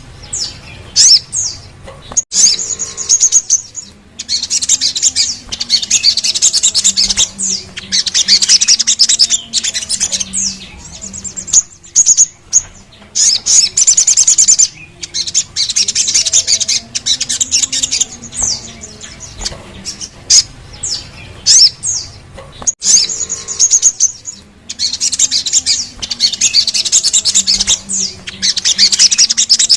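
Sogon, a sunbird, singing: long, rapid, high-pitched rolling trills lasting a few seconds each, broken by short pauses and sharp quick chips.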